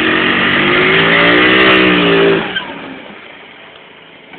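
Motor scooter engine revving hard while the rear wheel spins in the dirt, its pitch dipping and climbing again. About two and a half seconds in the revs drop off and it runs much more quietly.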